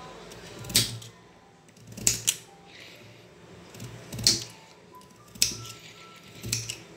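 Six sharp clicks or snaps at uneven intervals, two of them in quick succession about two seconds in, over a faint background.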